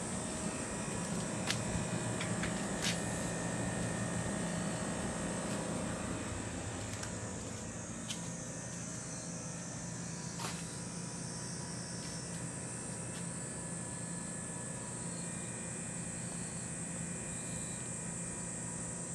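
Air conditioner running: a steady hum with a high-pitched whine above it, and a few light clicks in the first half.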